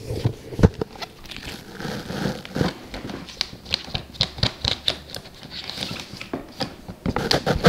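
A fidget toy being worked against a hard surface: a run of irregular small clicks and taps.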